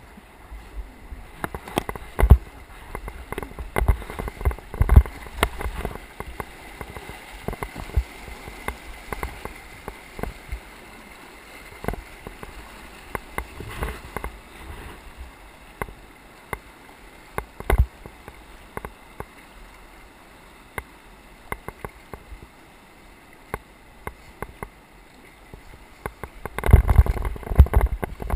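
Whitewater river rushing, with irregular splashes and knocks of water and paddle; the loudest come about two seconds in, around five seconds in, and in a dense burst near the end.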